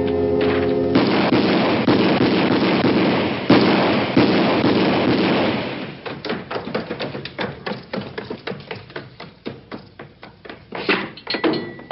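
Music with held chords, cut about a second in by a rapid, dense volley of pistol shots lasting about five seconds. The shots then thin out into a string of separate, quieter cracks.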